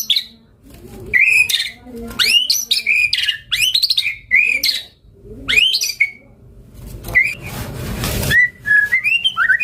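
White-rumped shama singing a fast series of loud upswept whistles, each rising sharply and about half a second long, with a harsh noisy burst about three-quarters of the way in followed by short whistled notes. It is in full, varied song, the kind used as a training or lure recording for caged shamas.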